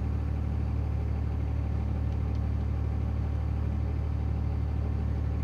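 A parked vehicle's engine idling: a steady low hum that does not change.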